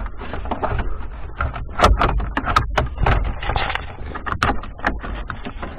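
Plastic dashboard trim being pried and handled: a run of sharp clicks and knocks, the loudest cluster about two seconds in and another a little after four seconds.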